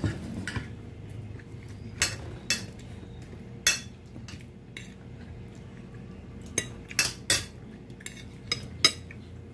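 Cutlery clinking against a glass dinner plate during a meal: about ten sharp, separate clinks scattered irregularly, the loudest near the end, over a steady low hum.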